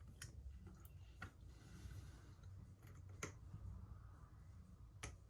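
Faint, sparse clicks of small scissors snipping double-sided adhesive tape at the corners, about five snips spread irregularly over several seconds.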